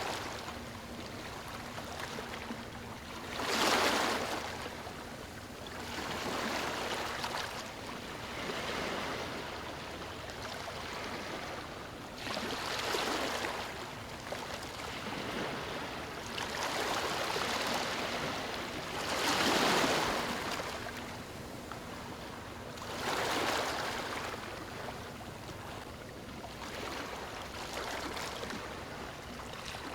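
Waves washing onto a beach, each swell of surf rising and falling every three to four seconds over a steady wash of water.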